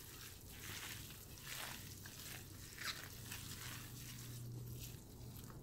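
Gloved hands mixing flaked fish and chopped cilantro in a ceramic bowl: faint, irregular soft squishing and rustling over a low steady hum.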